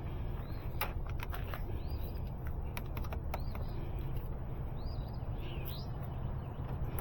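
Scattered light clicks and taps, with a few short bird chirps, over a steady low background rumble.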